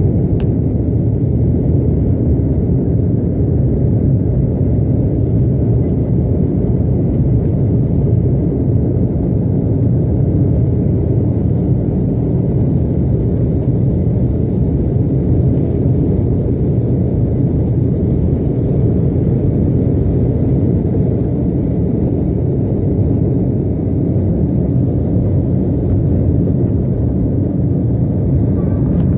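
Jet airliner heard from inside the cabin on its takeoff run: the engines at takeoff power and the runway roll make a loud, steady rumble.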